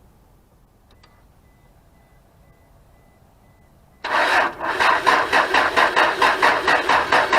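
Starter cranking the 1999 Isuzu Amigo's engine in a rapid, even beat: it stops, there is a pause of about four seconds, then the cranking starts again abruptly and goes on without the engine catching. The engine is failing to start.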